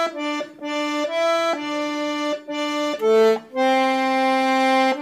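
Tulskaya garmon (Russian button accordion) playing the right-hand melody alone, one note at a time with no bass accompaniment: a string of short notes, then one long held note from about three and a half seconds in.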